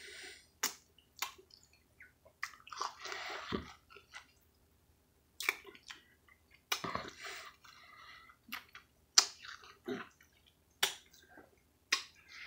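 Wet mouth sounds of eating a ripe, juicy mango by hand: sucking and chewing the flesh, with many sharp lip smacks.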